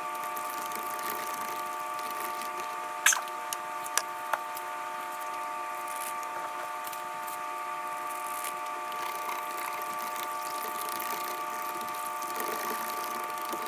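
A fork stirring and scraping in a plastic tub of water as gelatin powder is mixed in, with a few sharp clicks about three to four seconds in. Under it runs a steady machine hum of several fixed tones.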